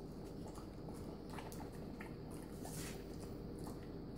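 Boxer dog eating blueberries off a tile floor: faint, scattered chewing and licking clicks with a brief sniff or two, over a steady low hum.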